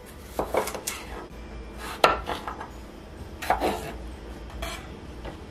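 Kitchen knife cutting small potatoes into quarters on a wooden cutting board: a handful of sharp knocks of the blade against the board, the loudest about two seconds in.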